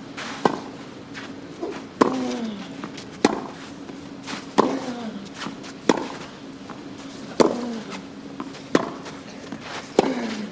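Tennis rally on clay: racket strings striking the ball about every second and a half, about eight shots in all. Every other shot, one player lets out a grunt that falls in pitch.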